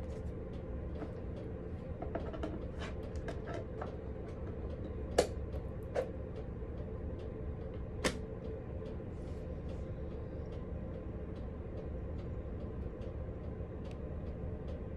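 Hands handling a portable DVD player: sharp plastic clicks about five, six and eight seconds in, the first the loudest, over a steady low hum with faint light ticking.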